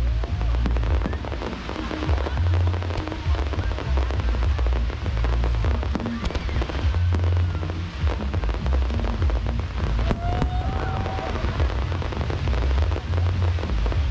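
Aerial fireworks display: dense crackling and repeated deep booms from bursting shells, with a few short whistling glides and music playing underneath.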